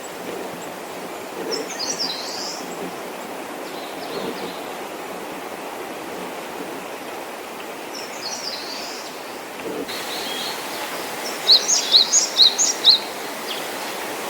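Small songbirds calling over the steady rush of a stream: two brief clusters of high chirps, then near the end a quick run of sharp, high, repeated notes.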